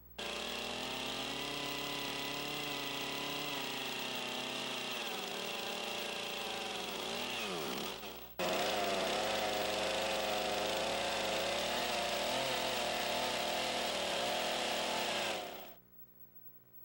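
Gasoline chainsaw running at high revs while cutting into a squared log. About eight seconds in, the engine pitch drops and the sound stops. It comes straight back at full speed and runs steadily until it dies away about a second before the end.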